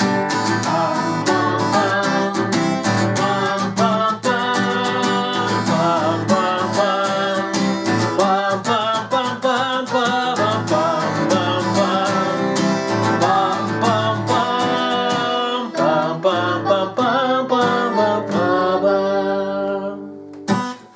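Acoustic guitar playing the song's closing instrumental passage, with a wavering melody line over it. It dies away near the end, followed by a short click.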